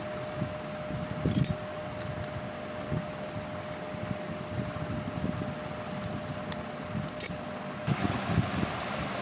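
Steel scissors snipping through folded paper, with paper rustling as it is turned. Two sharp clinks sound about a second and a half in and again about seven seconds in, over a steady background hiss and a faint hum that stops near the end.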